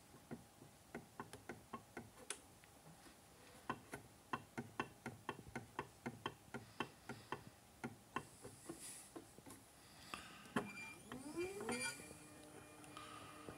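Anycubic Photon S resin printer's Z-axis: a run of sharp clicks, about four a second, from the build-plate carriage as it is worked by hand. About eleven seconds in comes a rising whine that settles into a steady high squeal as the motor drives the carriage along the lead screw: the lead-screw squeal.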